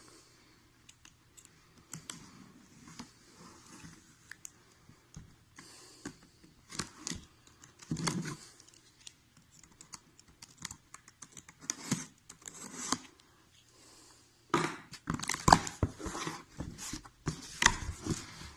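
Cardboard box and packaging being opened and handled: scattered scrapes, taps and tearing, then a denser, louder run of rustling and clatter in the last few seconds.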